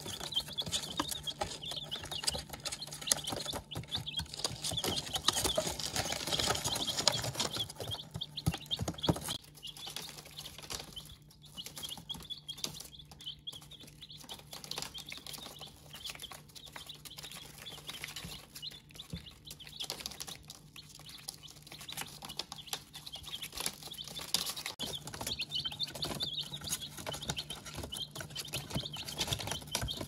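A brood of young chicks peeping nonstop, many high chirps overlapping, busiest and loudest in the first several seconds. Light pecking taps on the paper-covered brooder floor run beneath.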